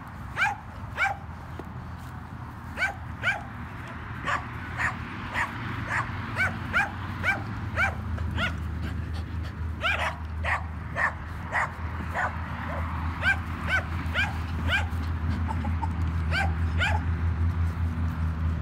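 Cockapoo puppies yipping: a long run of short, high-pitched yips, about two a second, over a low steady hum that grows louder in the second half.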